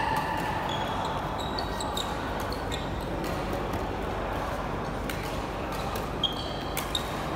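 Badminton rally: rackets hitting the shuttlecock in a string of sharp, irregular strokes, with sports shoes squeaking briefly on the court floor.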